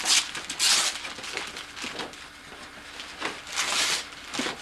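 Christmas wrapping paper being torn and crumpled in several short rustling bursts, the longest about three and a half seconds in.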